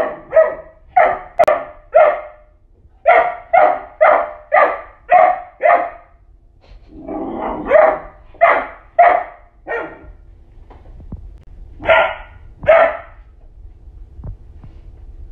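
Dalmatian barking in bouts of short, loud barks about two a second, with pauses between the bouts and two last barks near the end. The dog is barking at a bone it dislikes.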